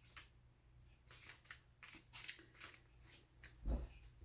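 Paper and craft materials being handled on a tabletop: soft rustles and short clicks, with one low thump near the end.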